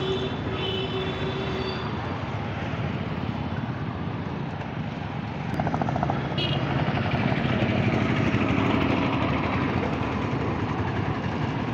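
Steady engine and road noise from travelling through town street traffic, with motorcycles and auto-rickshaws running close by. The noise grows louder about halfway through.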